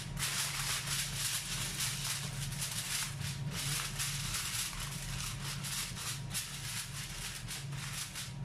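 Aluminium foil crinkling and rustling as it is pressed and crimped around the rim of a metal baking tray, a dense run of small crackles, over a low steady hum.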